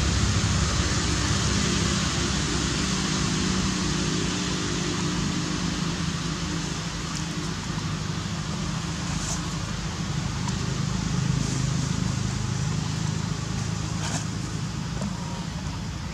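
Steady low rumble, like a motor vehicle running, under a broad even hiss, with a few faint short clicks.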